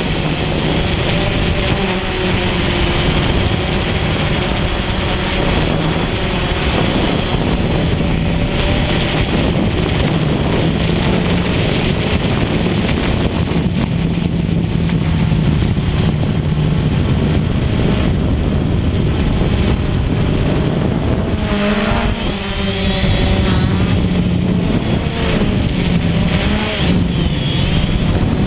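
DJI Phantom quadcopter's electric motors and propellers buzzing steadily in flight, heard from the camera carried on the drone, with wind rush. In the last few seconds the pitch wavers and shifts a few times as the drone manoeuvres.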